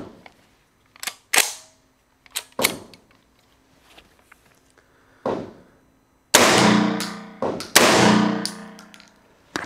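Armscor VR 80 semi-automatic 12-gauge shotgun firing two low-recoil slugs about a second and a half apart. Each loud bang rings out long in the walls of an indoor range.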